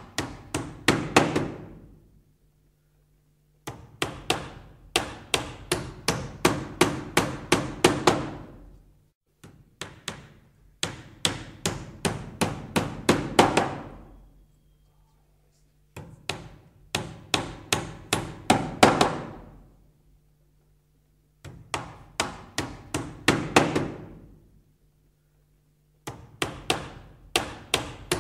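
A hammer striking repeatedly, about two to three blows a second, in runs of several seconds broken by short pauses. The blows tend to grow louder towards the end of each run.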